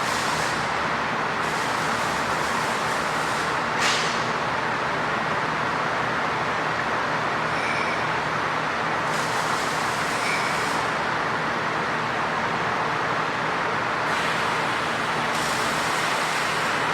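Horizontal bandsaw running at its slow blade speed for aluminum while an aluminum casting is fed into the blade: a steady, loud saw noise whose hissing top end comes and goes. A brief sharp click about four seconds in.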